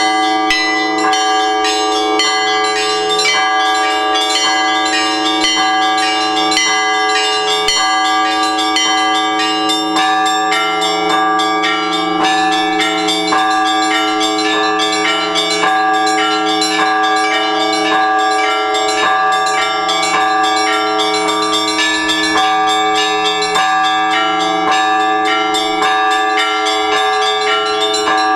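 Orthodox church bells rung together in a continuous peal: small bells struck rapidly in a quick rhythm over the long, steady ring of larger bells.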